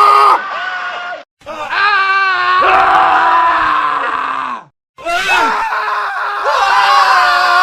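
A montage of men screaming, loud, one clip after another with hard cuts and two brief silent gaps; the longer scream in the middle falls in pitch as it ends.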